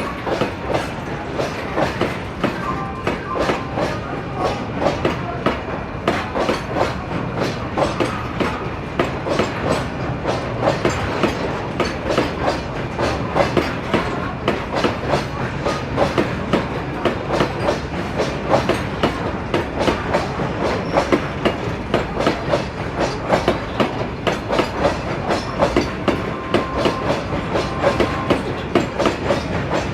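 Moving passenger train, its wheels clattering over the rail joints in a fast, steady clickety-clack.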